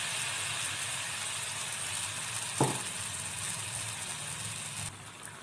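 Batter-coated green gram balls deep-frying in hot oil in a wok: a steady sizzle of bubbling oil, with a single knock about two and a half seconds in. The sizzle drops off sharply just before the end.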